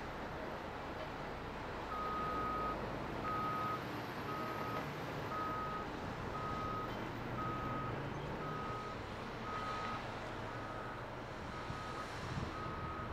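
Backup alarm on heavy construction equipment beeping about once a second, a single steady tone that starts about two seconds in, over the steady running of a diesel engine.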